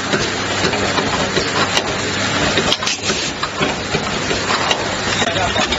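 LED bulb automatic assembly machine running: a steady hum and hiss with frequent small mechanical clicks.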